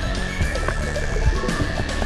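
Background music with held, sustained notes and a soft, uneven beat.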